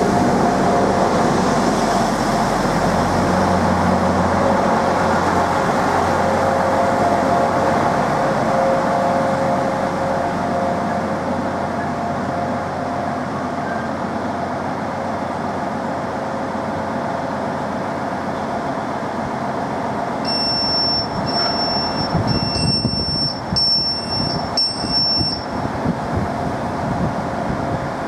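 Class 175 diesel multiple unit rolling slowly along the platform and coming to a stand, its diesel engines humming steadily. The low rumble of movement fades out about ten seconds in. Near the end there is a run of about five short high beeps, the unit's door warning tone.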